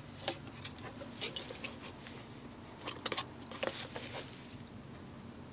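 Light, irregular clicks and taps of small objects being handled and moved on a workbench, over a low steady hum.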